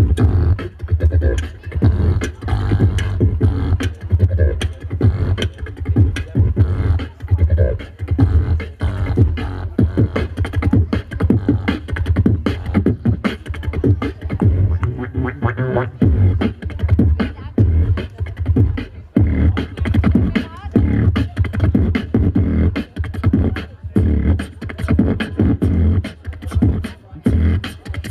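Live beatboxing: a fast, driving drum-and-bass beat of mouth-made kick, snare and hi-hat clicks over a steady deep bass hum.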